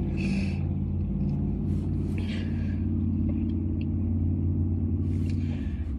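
Car engine idling, a steady low hum heard from inside the cabin, with three short sniffs as someone tears up.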